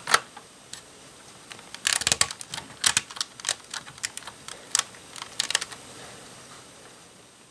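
LEGO bricks clicking as a brick-built island assembly is set into the floor and pressed down onto the baseplate studs: a run of sharp plastic clicks, thickest from about two to six seconds in.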